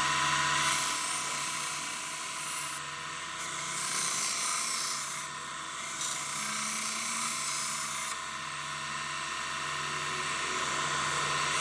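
Bucktool 1x30 belt grinder running at steady speed while a kitchen knife edge is ground against the abrasive belt. The motor's steady whine sits under a hissing grind that swells and eases every few seconds as the blade is passed across the belt.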